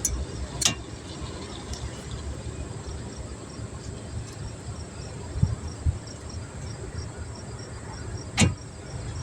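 Sharp metallic clicks of front brake pad clips being worked into place: one about a second in, a louder one near the end, and two soft knocks in between. A steady low rumble and a faint, even chirping run underneath.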